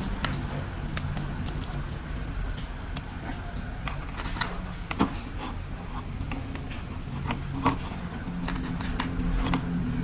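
Irregular sharp clicks and light rattles of plastic toy train parts being handled, over a low steady hum.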